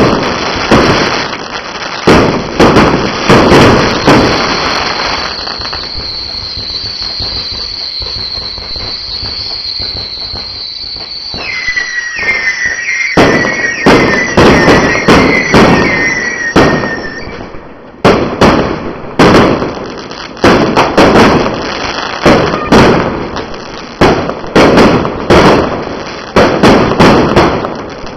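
Fireworks display: rapid loud bangs, easing into a quieter stretch of steady crackle about a third of the way through. Several short falling whistles follow, then dense bangs resume.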